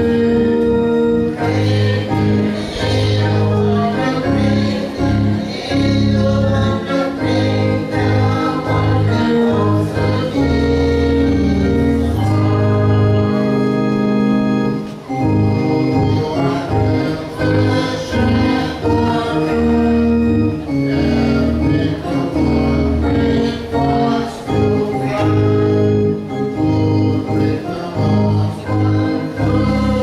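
Church choir singing a gospel hymn with keyboard accompaniment: sustained chords over a steady bass line.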